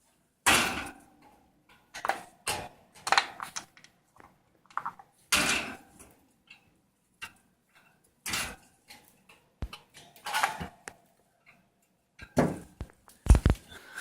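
Irregular knocks and clatter of small hard objects being handled or moved, a dozen or so separate hits of varying strength, the loudest near the end.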